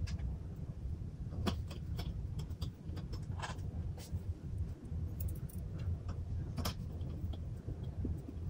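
Irregular small clicks and metallic ticks from a thin metal tool and fingertips working against the aluminium back of an Apple LED Cinema Display, over a steady low hum.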